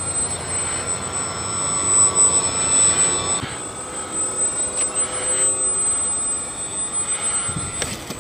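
Electric RC plane with two small brushless motors driving 8x3.8 pusher propellers, whining steadily as it flies overhead; the pitch of the whine shifts about halfway through.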